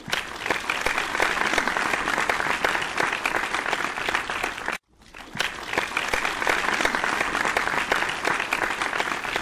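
Applause, many hands clapping. It cuts out abruptly for a split second near the middle, then resumes.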